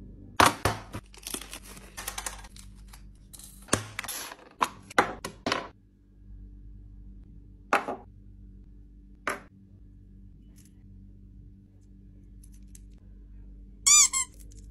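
Sharp clicks and clatter from handling small hard craft parts (tools, wire, clay charms and metal keyring parts) during the first several seconds, then two single taps a second and a half apart as pieces are set down on a desk. Near the end comes a short ringing chime with a slightly wavering pitch, over a faint steady hum.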